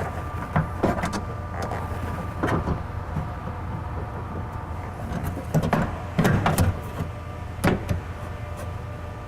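Scattered clicks and clunks of a metal window regulator being handled and fitted inside a car door, a cluster of them a little past halfway, over a steady background hum.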